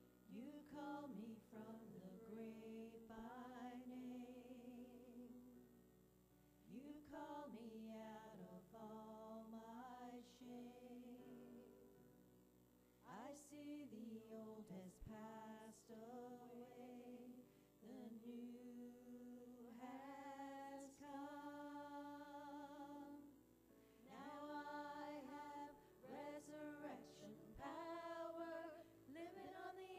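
A small group of women singing a worship song together in sung phrases, with short pauses between lines, recorded at a low level.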